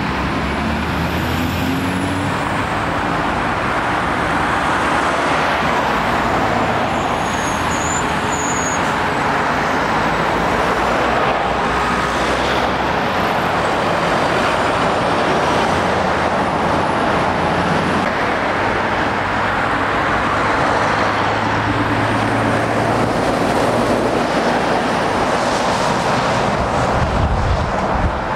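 Steady road traffic: diesel lorries and cars passing close, engines running and tyres on the road. An articulated lorry goes by partway through.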